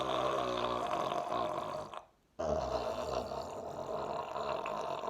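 Long, drawn-out human burps with a low, buzzing pitch: one ends about two seconds in, and after a short break another runs about two and a half seconds.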